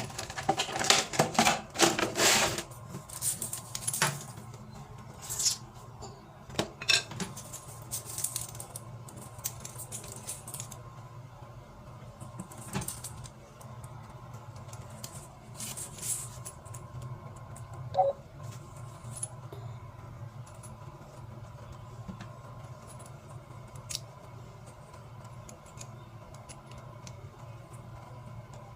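Small metal parts and tools clinking and clattering as they are handled: a quick flurry of clicks at the start, then scattered single clicks, over a steady low hum.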